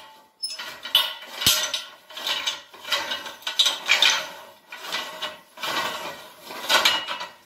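Steel Acrow prop's inner tube being slid down inside its outer tube, with repeated metallic scraping and clinking about once a second while the pin holes are lined up.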